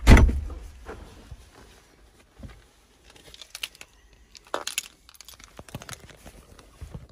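A heavy thud of a car door shutting, then scattered rustling and light clicks as the ignition key on its keyring is handled.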